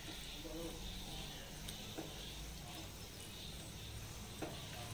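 Spatula stirring a thick onion-tomato masala in coconut milk in a nonstick kadai: soft scraping and faint sizzling, with two light knocks of the spatula against the pan, about two seconds in and again near the end.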